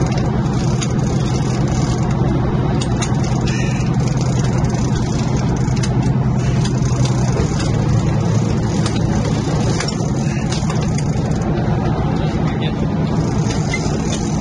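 Diesel engines of a 52-foot Merritt sportfishing yacht running steadily, a continuous low drone whose pitch shifts slightly about halfway through.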